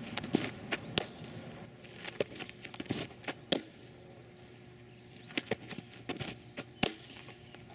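A fastpitch softball popping sharply into the catcher's mitt, once about a second in and again near the end, each time after a pitch is thrown. Lighter knocks and scuffs of feet on the dirt fall in between.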